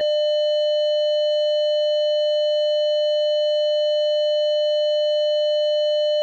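Simple transistor security alarm circuit sounding: one steady, unbroken electronic buzzer tone, showing the alarm has been triggered.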